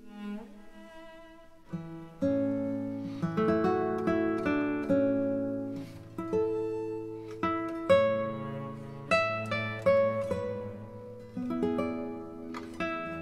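Background music: a gentle melody plucked on an acoustic guitar, quiet at first and fuller from about two seconds in.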